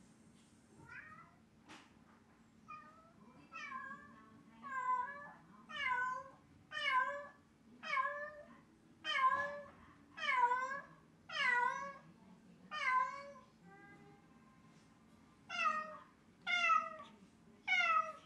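Domestic cat meowing over and over in sorrowful cries, about one a second, faint at first and louder from a few seconds in, with a short pause about two-thirds of the way through. The cat is calling for its owner, who is out of sight in the bath.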